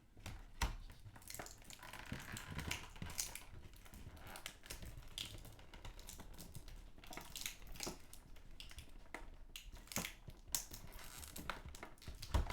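Plastic action-figure packaging crinkling and clicking as a piece is worked free of it, with irregular sharp crackles and rustles.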